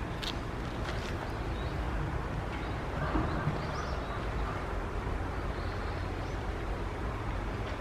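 Outdoor ambience: a steady low rumble, with a couple of sharp clicks right at the start and faint high chirps in the middle.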